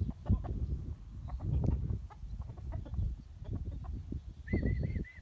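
Young chickens calling, with a quick run of about seven short high calls near the end, over low rumbling thuds.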